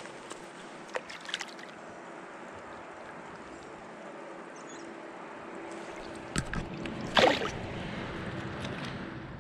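Steady rush of flowing stream water, with a few light knocks and a louder brief sound about seven seconds in.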